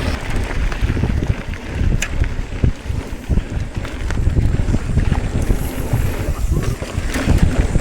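Wind buffeting the microphone of a camera carried on a mountain bike riding downhill, with rattles and knocks from the bike over rough trail.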